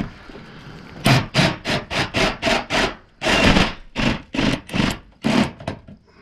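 Rhythmic rasping strokes, about four a second, in two runs with one longer stroke between them.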